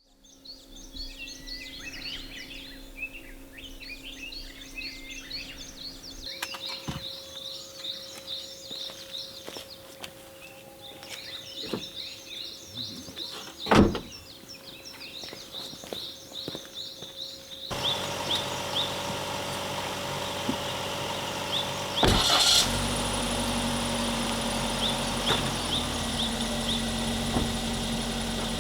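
Birds chirping in quick repeated calls over a faint steady hum, broken by one sharp knock about midway. Then, about two-thirds in, a car engine and road noise come in steadily, with a thud shortly after.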